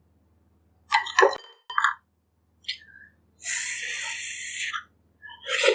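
Close-miked eating sounds: a utensil clinks against a bowl about a second in, then a slurp of soup lasts over a second near the middle, and chewing starts near the end.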